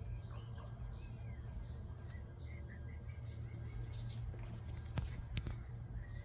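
Birds chirping in the background over a low steady rumble, with two sharp clicks about five seconds in.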